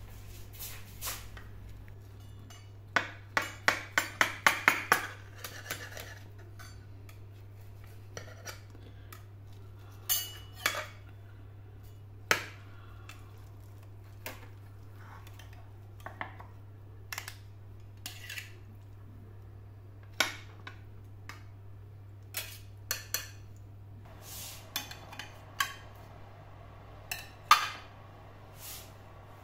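Dishes and cutlery clinking: a quick run of clinks about three seconds in, then scattered single clinks, over a steady low hum.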